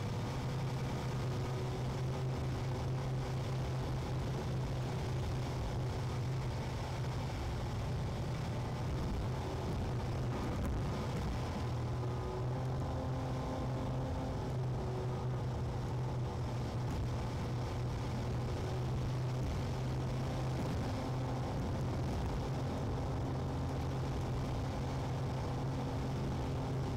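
Steady low drone of a car's engine and tyres, heard from inside the cabin while driving.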